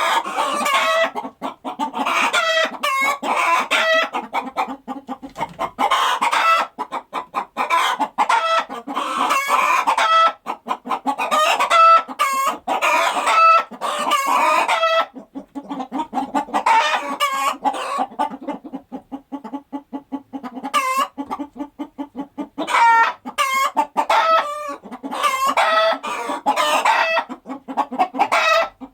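Chickens clucking, several birds calling in quick overlapping runs of short clucks with brief pauses between runs, and a few longer drawn-out calls.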